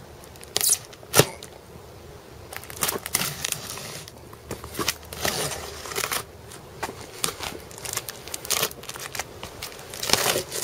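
Pocket knife slitting the packing tape along the seams of a cardboard box: an irregular run of scratchy slicing and tearing sounds, with two sharp clicks about a second in.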